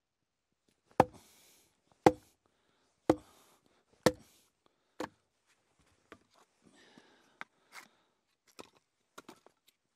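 Hatchet splitting firewood on a chopping block: five sharp chopping knocks about a second apart, the fifth weaker, then lighter knocks and clatter as the split pieces of wood are handled.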